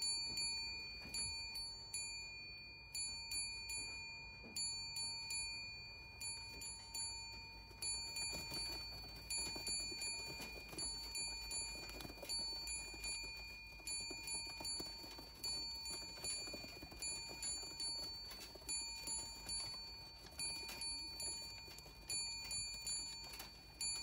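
A bell rung over and over, about once or twice a second, each strike ringing on and fading, with pigeons' wings flapping as the birds land on the loft's landing board. The young racing pigeons are used to the bell as their signal to come into the loft.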